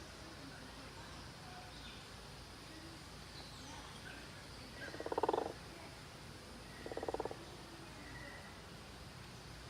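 A bird giving two short, low, buzzy calls made of rapid pulses, about two seconds apart; the first is the louder.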